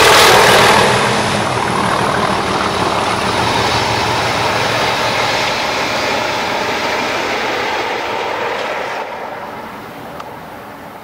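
Diesel-hauled passenger train passing and running away into the distance, with an English Electric Class 37 leading and a Class 47 on the rear. The locomotive engines and the coaches running over the rails fade steadily, dropping away sharply about nine seconds in.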